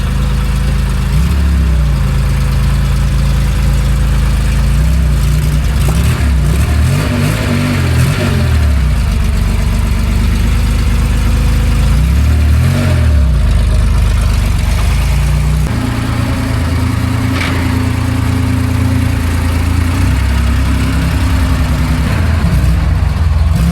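Air-cooled flat-six engine of an early Porsche 911E running, settling at idle with repeated blips of the throttle that sweep the revs up and back down.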